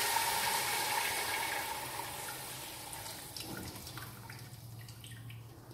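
Thin besan-and-yogurt batter poured from a jug into a pot of hot tempered oil. A rushing pour over a sizzling hiss that fades steadily as the liquid fills the pot, with a few light clicks near the end.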